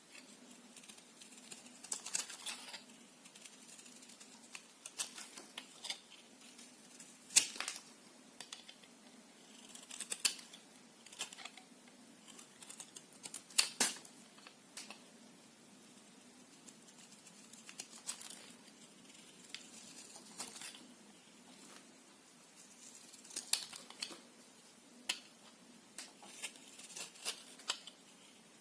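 Knife cutting soap: short scraping strokes and sharp clicks at irregular intervals, the loudest about 7 and 14 seconds in.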